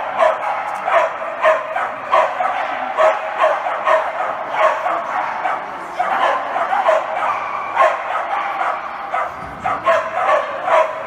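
A dog barking over and over, about two barks a second, without a break.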